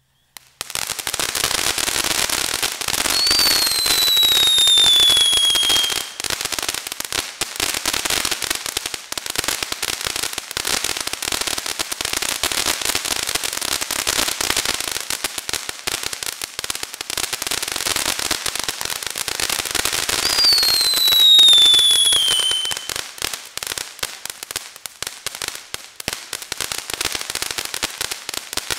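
Black Cat Neighbor Hater fireworks fountain burning: a dense, steady crackle of sparks that starts about half a second in. A falling whistle rises out of the crackle twice, a few seconds in and again about two-thirds of the way through.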